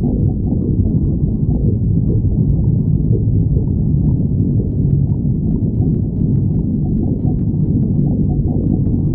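A hungry person's stomach growling: low, steady gurgling and rumbling, with a few faint small clicks in the second half.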